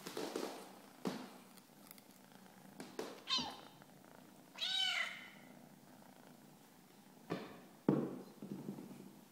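Black kitten purring close up, giving two short high-pitched meows in the middle, a falling one and then an arched one. A few knocks break in, the loudest near the end.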